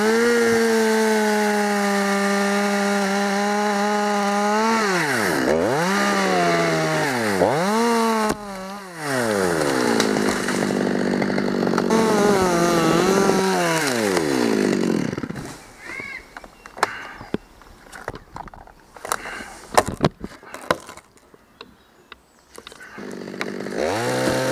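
Chainsaw held at high revs cutting, dipping and blipping the throttle several times around five to eight seconds in, then revving hard again. From about halfway it drops away, leaving scattered knocks and clicks, and revs up again near the end.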